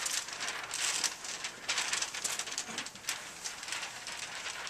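Shuffling and rustling of people moving around a room, with many quick sharp clicks throughout.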